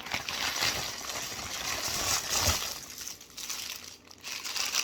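Packaging crinkling and rustling as the next item is handled and pulled out of its shipping package, dense at first and thinning into short, scattered rustles after about three seconds.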